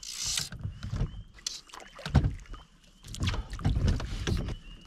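Hooked brook trout splashing at the surface beside a canoe as it is brought to hand, with irregular knocks and bumps against the canoe hull. A short splash comes right at the start, and the bumping is strongest about two seconds in and again a second later.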